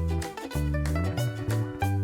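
Background music: an instrumental track with a prominent bass line that moves between held notes, over a steady beat.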